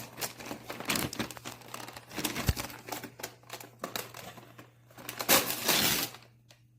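Gift wrapping crinkling and rustling in irregular bursts as a present is handled and unwrapped, with a louder stretch of rustling about five seconds in.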